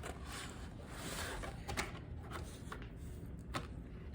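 Soft rustling and a few light clicks of cardboard baseball cards being handled and sorted, over a faint low room hum.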